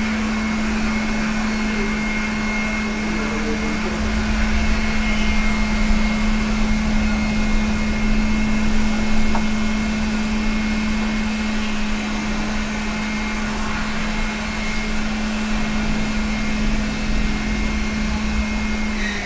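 SMD hot air rework station blowing hot air continuously onto a laptop graphics chip to reflow it: a steady fan hiss with a constant low hum and a fainter high whine.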